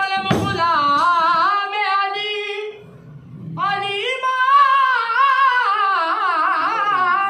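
Qawwali singer's voice holding two long, ornamented sung phrases with a wavering pitch, with a short break between them about three seconds in.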